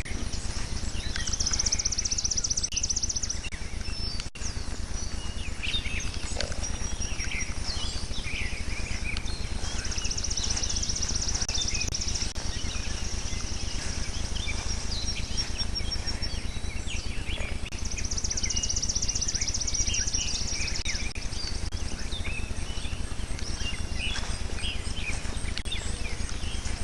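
Birds chirping and calling, with a high, rapid trill lasting about three seconds that comes three times, over a steady low hum.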